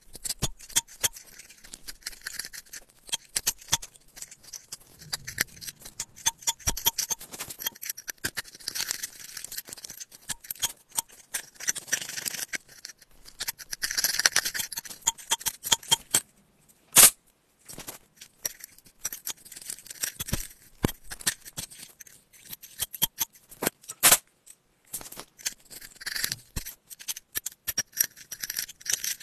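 A metal pick scraping and picking inside an iPhone's charging port, digging out packed lint: irregular dry scratching with many small clicks. One sharper click stands out about 17 seconds in.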